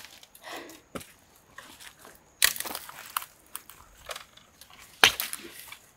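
Dry bamboo stems, twigs and leaf litter crackling and snapping as a hand pushes into a clump of bamboo, with two loud sharp cracks about two and a half and five seconds in and smaller clicks between.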